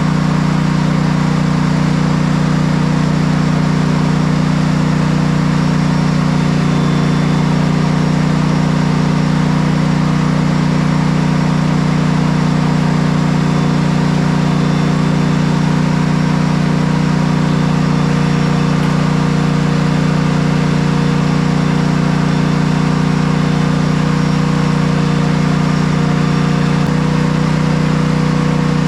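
Cub Cadet Enduro XT2 riding mower's 679cc EFI engine running steadily at an even speed, a constant low drone.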